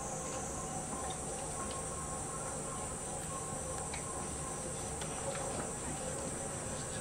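Steady, shrill, high-pitched insect-like drone, as of crickets, over a low, even background rumble.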